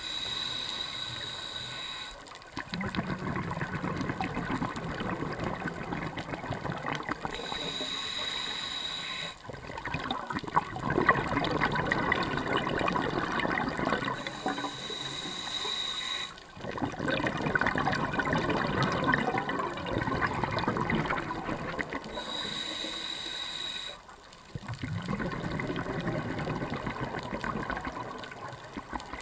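Scuba diver breathing through a regulator underwater: each short inhale carries a thin high whistle, and each is followed by a longer rush of exhaled bubbles. The cycle repeats about every seven seconds, four times.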